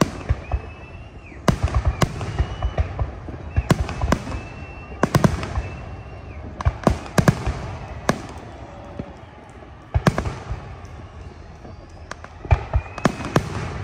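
Aerial fireworks display: sharp bangs and crackling bursts overhead, coming in clusters every second or two, with a lull of about two seconds near the end before a final cluster.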